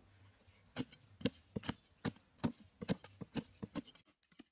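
Hand digging tools striking hard, dry sandy earth, a quick irregular run of sharp chopping thuds, about three a second, that begins about a second in.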